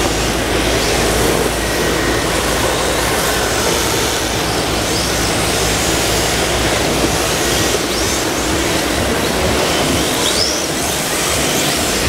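Steady whirring noise of several 1/10-scale electric RC drift cars running, with short high squeaks a few times.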